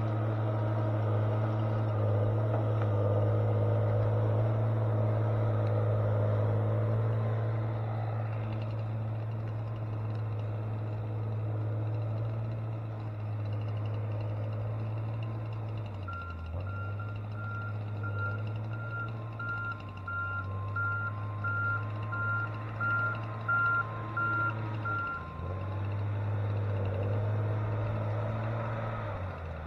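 Heavy diesel logging machine running steadily, its engine note dipping briefly a couple of times. Its reversing alarm beeps at a steady pitch, about once a second, for roughly nine seconds past the middle.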